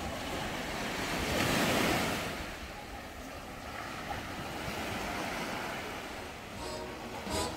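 Small sea waves washing over a rocky shore, a steady rushing noise with some wind on the microphone. The wash swells about two seconds in.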